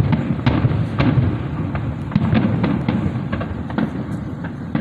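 Aerial fireworks going off: a rapid, irregular string of sharp bangs and crackles over a continuous low rumble of booms.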